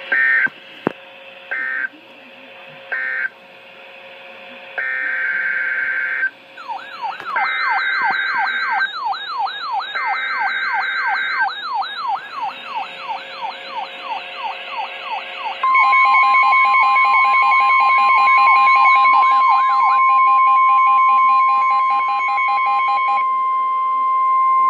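Emergency Alert System header data: two sets of three short, harsh screeching bursts. Partway in, a warbling siren-like alarm joins, sweeping up and down rapidly. About two-thirds in, a loud steady alert tone starts and holds to the end. It is the attention signal that announces the next severe thunderstorm warning.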